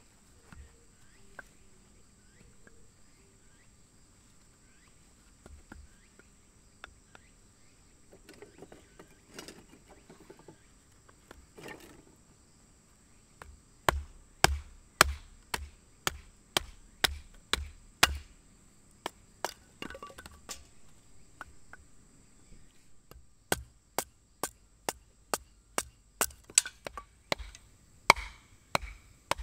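Firewood being split by batoning: a piece of wood knocks on the back of a blade set into an upright stick of firewood, about two sharp wooden knocks a second, starting about halfway in after quieter handling and pausing briefly before going on.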